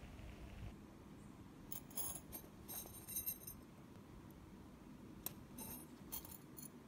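Thin micro-plated metal bangles clinking and ringing against each other as they are handled, in two spells of light chimes: about two seconds in, and again near the end.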